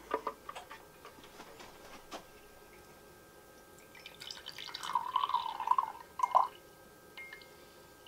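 Water trickling from the small drain hole of a Zeny mini dehumidifier's plastic tank into a glass measuring cup, a wavering stream between about four and six and a half seconds in. A few light clicks of the plastic tank being handled come in the first second or two.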